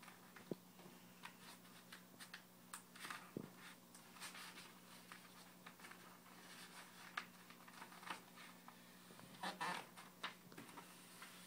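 Faint rustling and brushing of a large paper sheet being folded and pressed flat by hand, in brief scattered rustles that grow a little louder near the end, over a steady low hum.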